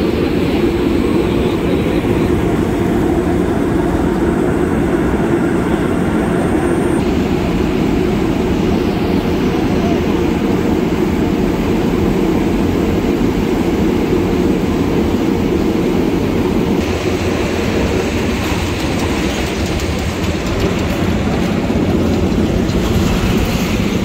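Vögele Super 2100-2 asphalt paver running steadily at close range while paving, a loud, constant machine rumble.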